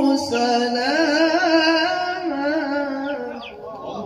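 A man reciting the Qur'an in the melodic tilawah style, holding one long, ornamented note with wavering pitch that fades out near the end.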